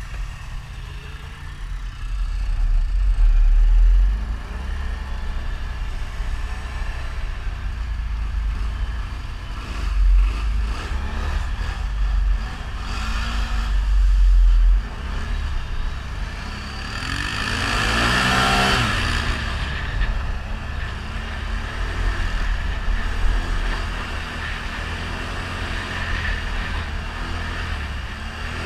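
ATV engine running as it is ridden, with a heavy low rumble throughout. A little past the middle, the engine revs up hard and drops back.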